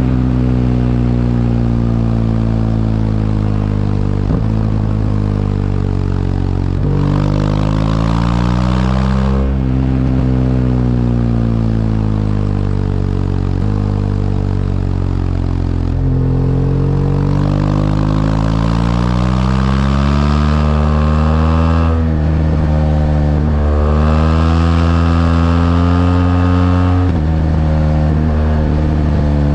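BMW R1200GS LC's liquid-cooled boxer-twin engine under way, its pitch climbing as it accelerates and falling back several times as it shifts gear or rolls off the throttle.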